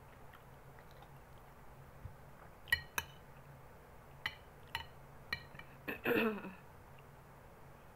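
A metal spoon clinking and scraping against a glass bowl while scooping rice, about six short ringing clinks starting nearly three seconds in. A brief, louder noise follows about six seconds in.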